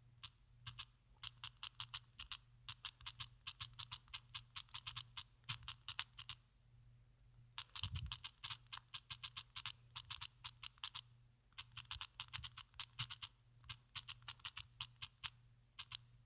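Typing on a keyboard: rapid key clicks in quick runs, broken by short pauses about six and eleven seconds in.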